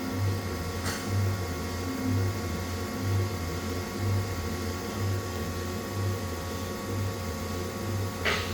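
Haas SL30T CNC lathe running: a steady machine hum with a low throb that swells about once a second. Two short hisses cut in, one about a second in and one near the end.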